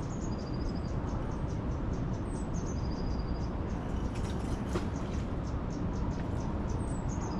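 A small songbird sings the same short phrase three times, a few seconds apart: a quick high falling note, then a thin, held note. Under it runs a steady rushing noise.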